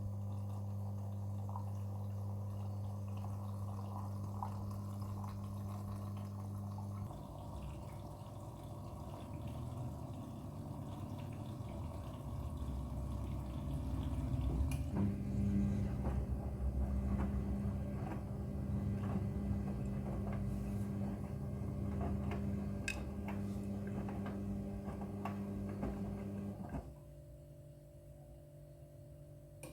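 Midea front-loading washing machine filling with water: a steady hum from the inlet valve with water running and splashing into the machine, stopping abruptly near the end.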